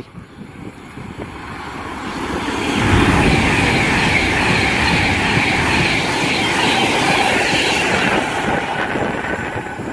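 Class 390 Pendolino electric train passing through the station at speed without stopping. Its rushing wheel-and-rail noise builds over the first three seconds, holds loud, then eases a little near the end.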